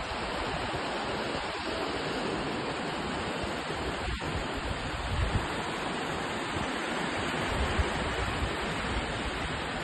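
Steady rush of small waves washing over a flat sandy beach, with short low rumbles of wind on the microphone now and then.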